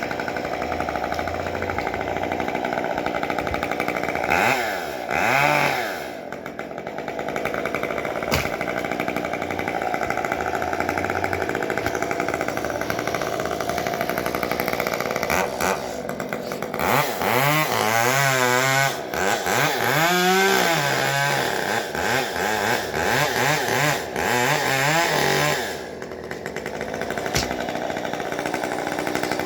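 Chainsaw engine running steadily, revved up and down twice about four seconds in, then revved repeatedly in quick up-and-down throttle blips through the later part before settling back to a steady run.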